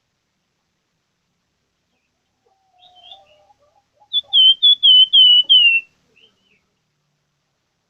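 Plamboyan songbird singing: a few faint notes, then about four seconds in a loud run of about six quick slurred whistles, each one a little lower than the last.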